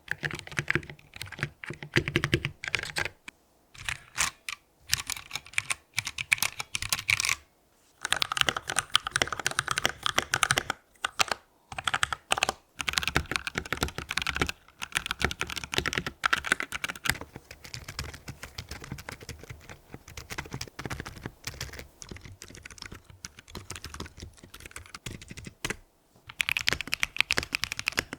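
Typing on several different novelty computer keyboards in turn: fast runs of key clicks, broken by short pauses where one keyboard gives way to the next, each with its own click sound.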